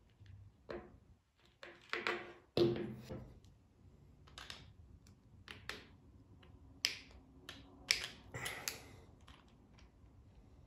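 Irregular small clicks, knocks and light metal scrapes as pliers grip and tighten a brass drill chuck, holding a thin drill bit, onto a small DC motor's shaft. The loudest knock comes between two and three seconds in, with a cluster of sharper clicks later.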